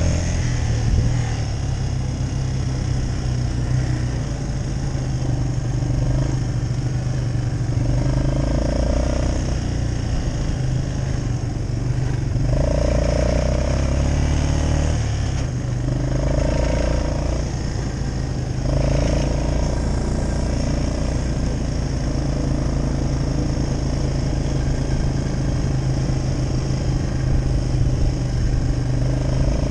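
Quad bike (ATV) engine running steadily while riding along a dirt track. The engine note swells briefly every few seconds.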